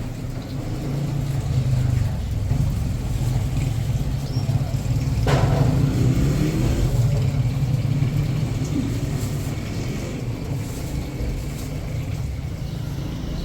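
Motor vehicle engine running with a steady low rumble, with one brief sharp noise about five seconds in.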